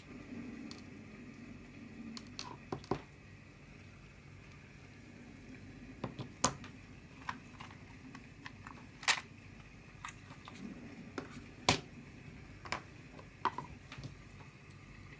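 Handling of a Zippo-style metal flip-top lighter: scattered sharp clicks and taps, three of them louder and spaced a few seconds apart.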